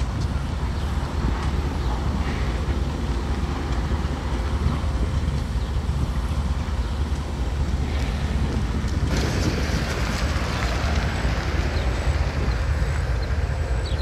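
Diesel locomotive idling with a steady low rumble, with wind on the microphone adding a hiss that grows louder about nine seconds in.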